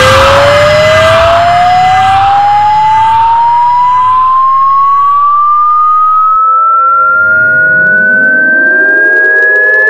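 A single pure, loud tone sweeping slowly and steadily upward in pitch, like a siren winding up, layered over a harsh noisy mix that drops out about six seconds in, leaving a few steady lower tones beneath the rising one.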